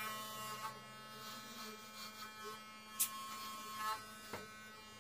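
Electric hair clippers running with a steady buzz while shaving a head close to the scalp. A short sharp click about three seconds in.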